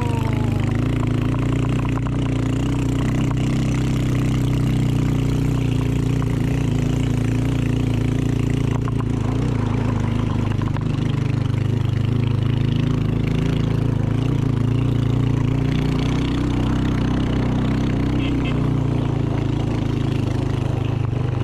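Motorbike engine running steadily under way, its note holding fairly level.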